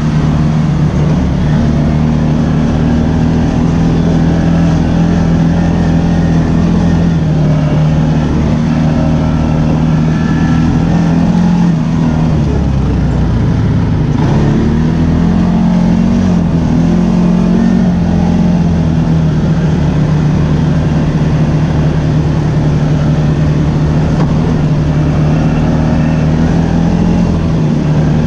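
ATV engine running steadily while riding, its note dipping and picking up again about halfway through.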